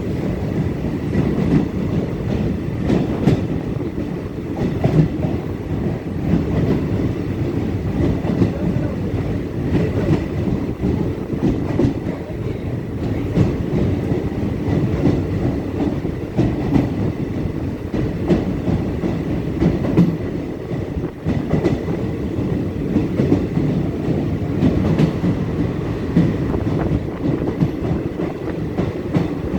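Passenger train running through a long tunnel, heard from inside the coach: a steady loud rumble with frequent clacks of the wheels over the rails.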